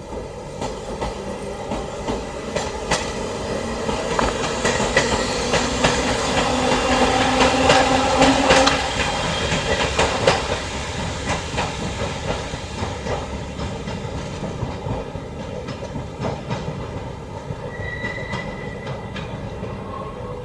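Izuhakone Railway Sunzu Line electric train pulling out, its traction motors whining upward in pitch as it gathers speed; the whine cuts off about nine seconds in. Wheels clatter over rail joints and points throughout, loudest as the train passes and then easing as it moves away, with a brief high squeal near the end.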